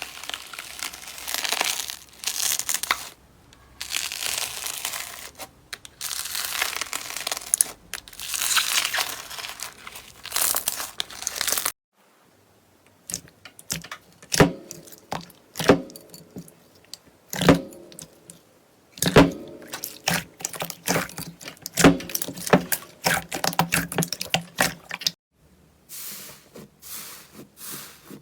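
Slime being squeezed and pulled by hand. It starts with bursts of dense, hissy crinkling. After a sudden cut, about twelve seconds in, it turns into a run of separate sharp clicks and pops.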